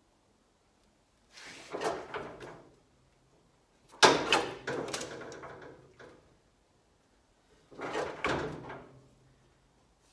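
Sheet metal duct panel and a manual sheet metal brake clattering as the panel is set in the brake for a slight bend. There are three separate bursts of metallic rattle and knock. The loudest starts with a sharp clank about four seconds in.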